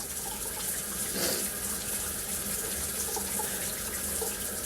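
Steady, even background hiss, with a faint brief sound about a second in.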